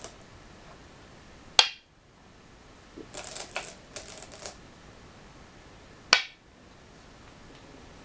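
Go stones played on a wooden go board: a sharp click with a short ring as a black stone is set down about one and a half seconds in, then the clatter of fingers rummaging among the stones in the bowl of white stones, and a second sharp click as a white stone is placed about six seconds in.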